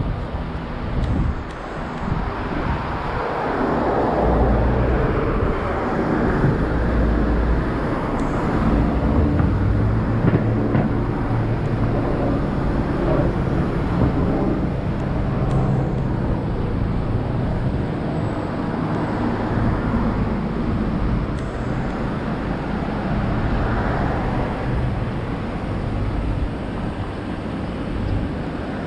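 Road traffic on a busy city street: cars and larger vehicles passing with engines running over a steady rush of tyre noise, which swells a few seconds in as vehicles go by.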